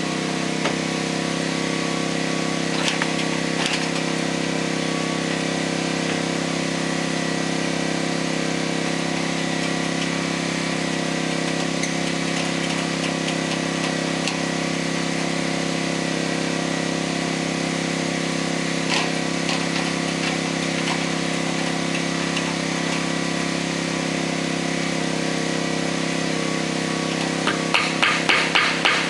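A small engine runs at an unchanging speed throughout. Near the end there is a quick run of about seven sharp taps that grow louder.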